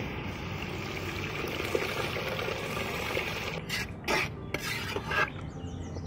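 Tamarind water poured in a steady stream from a clay pot into a hot metal pot of sautéed onions and tomatoes. From about three and a half seconds a metal ladle scrapes and knocks against the pot several times as the curry is stirred.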